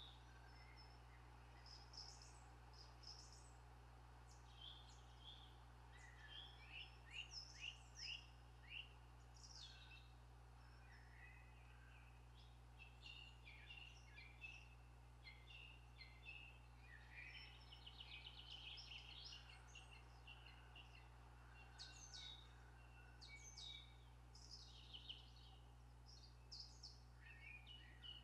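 Faint birdsong from several small birds: scattered chirps and short whistled phrases, with a rapid trill about two-thirds of the way through, over a steady low background rumble.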